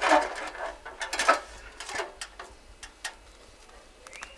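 Irregular sharp clicks and knocks, a few a second, from hand work on an aluminium ladder against a stone wall, loudest at the start. A brief high squeak comes near the end.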